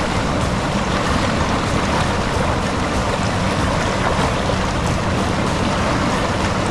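Steady rush of river current flowing over stones.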